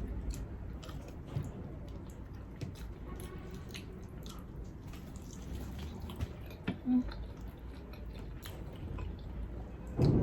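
A person chewing and eating close to the microphone, with scattered small clicks from mouth and utensils. A brief louder sound comes right at the end.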